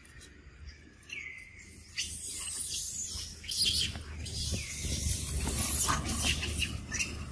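High-pitched chirping calls outdoors: a single falling chirp about a second in, then dense, louder chirping with sharp clicks from about two seconds on.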